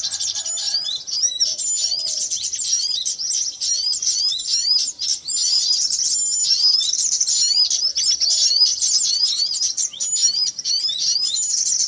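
Many small songbirds twittering at once, a dense unbroken chatter of short high chirps and quick slurred whistles.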